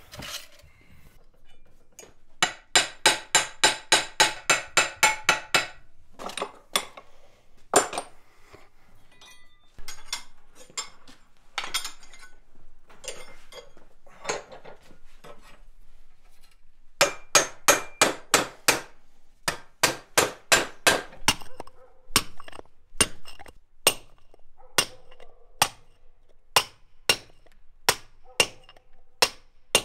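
Hand hammer striking steel in runs of ringing blows, about three a second. Later come slower, evenly spaced blows, a little more than one a second, of a hammer driving a chisel to cut holes in a stone block.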